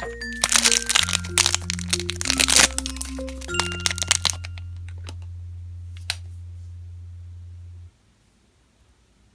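Thin plastic packet crinkling and crackling as fingers tear it open, over background electronic music. The crackling stops after about four seconds; one more sharp click follows, then the music cuts off near the end.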